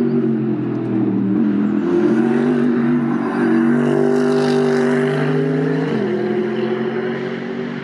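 Mercedes-AMG GT3 race car's V8 engine running hard on the circuit, its note held high with the pitch stepping down and up several times.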